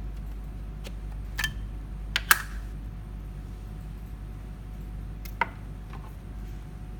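Several short, sharp clicks and taps, the loudest a little over two seconds in and another near the five-second mark, over a steady low hum.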